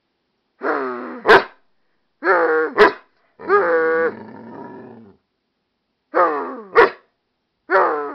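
American Staffordshire terrier/pit bull mix making a run of five growly, drawn-out vocalizations, three of them ending in a sharp short bark.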